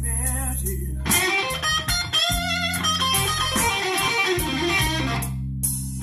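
A song with electric guitar and bass guitar playing through a car audio system with a Kenwood KDC-100U head unit and an Art Nouveau AN4.400 amplifier, heard inside the car's cabin.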